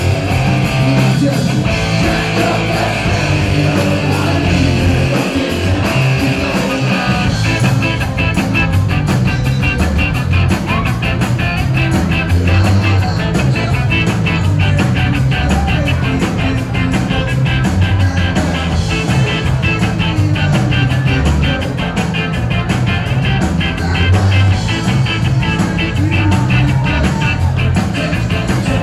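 Live band playing loud reggae-rock: sung lead vocals over electric guitar, bass and drums. From about eight seconds in, a fast, even run of short strokes drives the beat.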